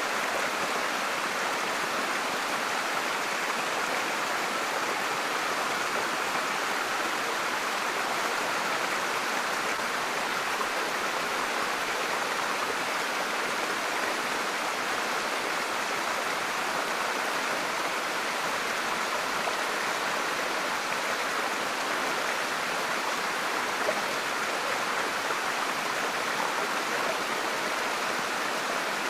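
Steady rush of running water from the stream and falls, even and unbroken.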